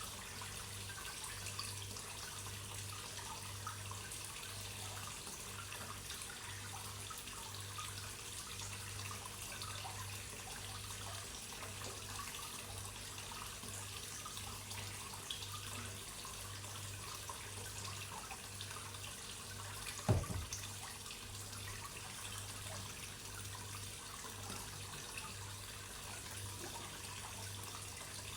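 Water running and trickling steadily into a koi pond, over a low, even hum. A single short thump comes about twenty seconds in.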